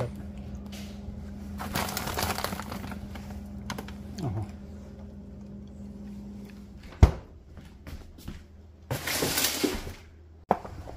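A refrigerator-freezer door is shut with one sharp thud about seven seconds in. Before that the open fridge gives a steady low hum, which stops as the door closes. Rustling and handling noises come before the thud and again near the end.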